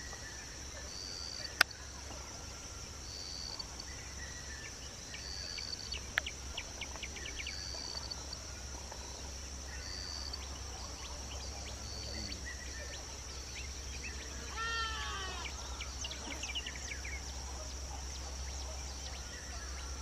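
Insects drone steadily on a high note while short high chirps repeat every second or two. A bird calls in a quick run of falling notes about fifteen seconds in, with more calls just after.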